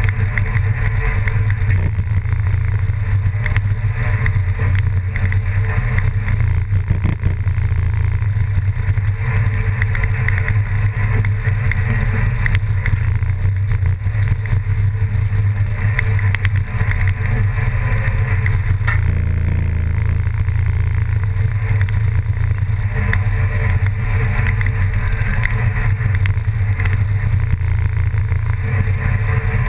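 An engine running at a steady speed, a low unbroken drone with rushing noise over it.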